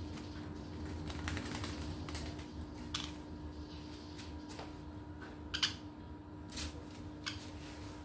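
Scattered short clicks and taps from green-cheeked conures on a wooden branch perch, the loudest about five and a half seconds in, over a steady low hum.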